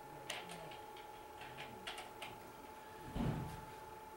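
Faint, light metallic clicks of a hex nut and washer being spun onto a steel bolt by hand on a sewing machine motor mount, followed by a duller knock about three seconds in.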